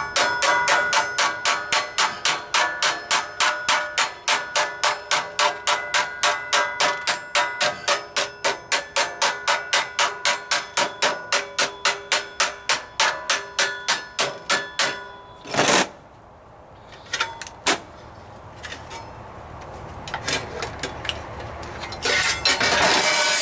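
Hammer striking a sheet-steel floor-pan patch over a block in quick, even blows, about four a second, each with a ringing metallic tone, as a stiffening bead is tapped in by hand. The hammering stops about fifteen seconds in; a few separate knocks follow, and then a short, loud rushing noise comes near the end.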